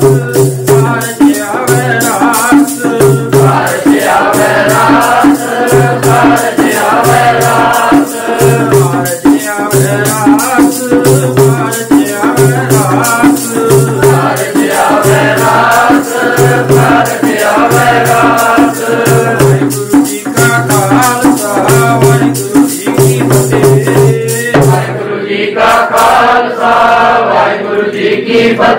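Sikh devotional hymn singing (kirtan) by voices, with a hand-played dhol keeping a steady beat under dense, regular jingling percussion. About 25 s in, the drum and jingles stop and the voices carry on alone.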